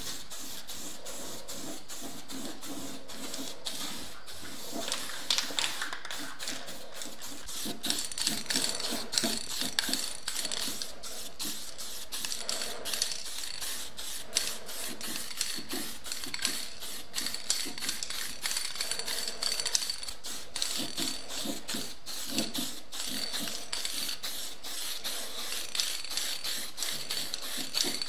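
Aerosol spray-paint can hissing in a steady stream as black paint is sprayed onto the steel smoker body, with many small clicks throughout.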